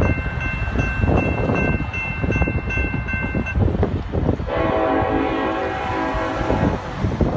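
Grade-crossing warning bell ringing steadily, then stopping about three and a half seconds in once the gates are up. About a second later the receding train's horn sounds one long blast of roughly two seconds, over a low rumble.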